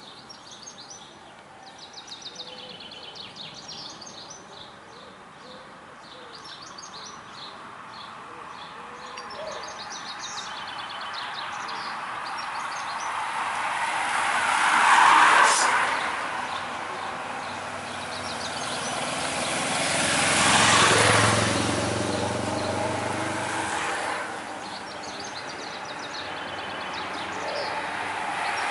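Motor vehicles passing on the road. Two pass-bys swell and fade, one about halfway through and one about two-thirds through, the second with a low engine hum, and a third is building near the end. Birds chirp faintly in the first half.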